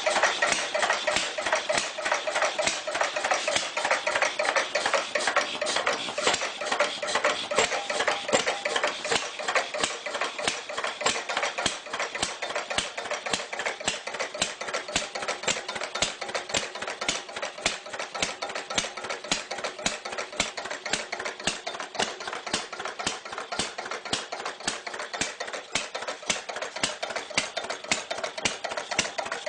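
Clunky old engine running with a rapid, even clatter of knocks.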